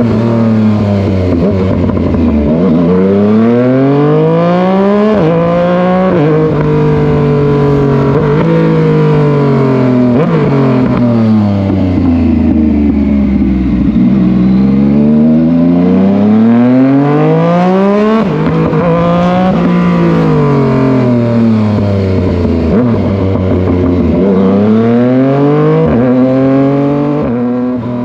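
Yamaha MT-09 three-cylinder motorcycle engine accelerating hard through the gears, its pitch climbing and dropping sharply at each upshift, then falling away as the bike slows, twice over.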